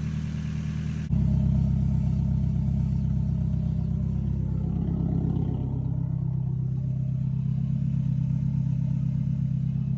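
Nissan KA24DE 2.4-litre inline-four running steadily, getting louder about a second in. The engine runs good now that a faulty engine harness, the cause of a no-crank, no-start, has been replaced.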